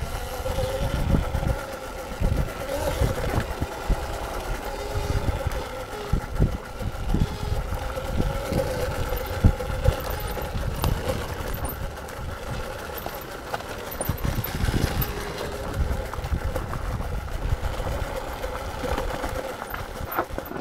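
Electric dirt bike riding a trail: a steady motor whine whose pitch wavers with speed, over irregular low thumps and rumble.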